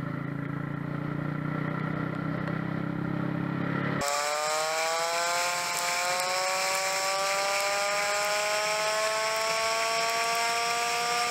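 A vehicle's engine and road noise running steadily and low. About four seconds in it switches abruptly to a high-pitched engine whine that slowly rises, because the dashcam recording is being played back fast-forwarded.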